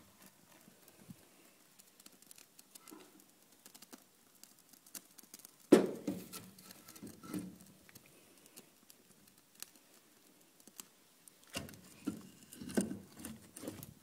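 Split firewood logs being laid by hand onto burning kindling in a fireplace. There is a sharp wooden knock about six seconds in, then more knocking and scraping of logs near the end, over faint crackling of the small fire.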